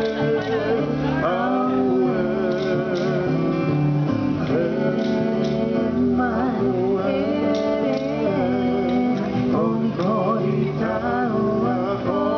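A Māori song: voices singing a melody with guitar accompaniment.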